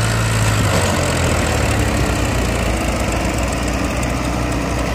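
Two diesel tractor engines, a Mahindra and a Powertrac, running steadily under load while pulling a heavily loaded trolley through soft sand.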